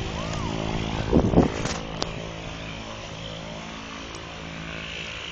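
Airplane engines running with a steady droning hum while the aircraft waits to start its takeoff.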